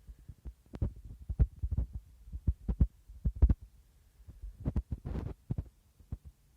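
Irregular series of dull thuds and knocks from a neighbouring flat, many in quick succession with a short pause partway through, and a brief scraping sound near the end.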